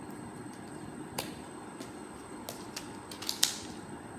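Plastic slime container being handled and closed: a few light clicks and taps, the loudest a sharp snap near the end.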